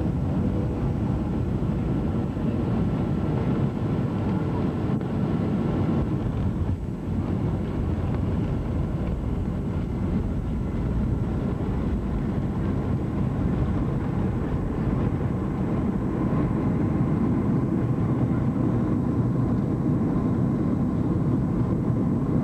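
Jet airliner's engines and cabin noise heard from a window seat as the plane rolls on the ground: a steady rumble with a faint whine, growing slightly louder in the second half.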